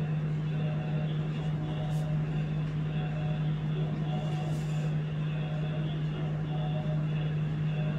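A steady low hum, unbroken and even in level, with faint higher tones coming and going over it about once a second.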